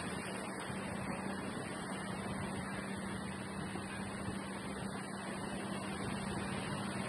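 Steady roar of sea surf on a beach, with a steady low hum running underneath.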